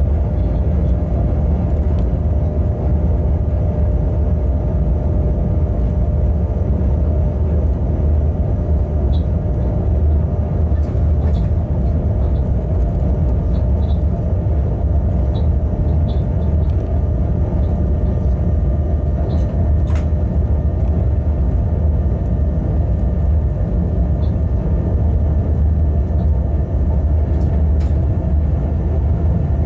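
Freight locomotive running, heard inside its cab: a steady low rumble with a constant hum, and now and then a faint tick.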